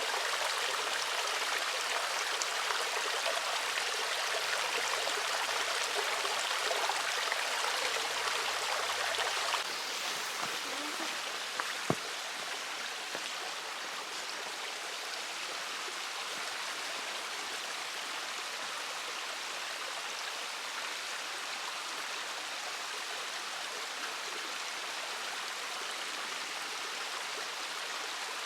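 Steady rushing of a stream, a little quieter after about ten seconds, with a single sharp click about twelve seconds in.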